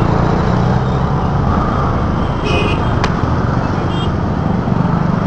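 Steady city road traffic heard from a moving vehicle: engines running and tyre noise with a low rumble. Short high beeps sound about two and a half seconds in and again near the end.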